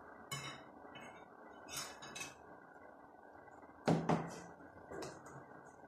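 A utensil knocking and clinking against a bowl while a mixture is stirred: about six separate knocks, the loudest pair close together about four seconds in.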